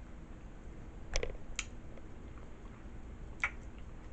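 Quiet eating sounds from a mouth eating nachos: three short soft clicks and smacks, two about a second in and one about three and a half seconds in.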